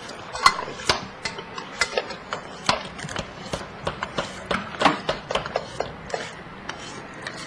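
Irregular clicks and clinks of cutlery and dishes during a meal, a few a second, a couple of them ringing briefly.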